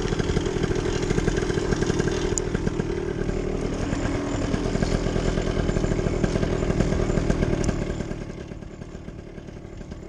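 Paramotor engine running steadily with a rapid, even pulsing; it gets noticeably quieter about eight seconds in.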